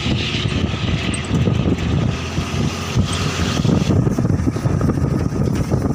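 Steady rumble of a moving vehicle's engine and road noise, heard from on board. A higher hiss fades out about four seconds in.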